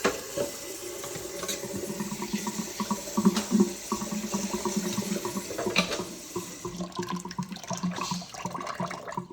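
Water running from a tap into a container in a sink, with a hollow ringing as it fills; the rush thins out near the end.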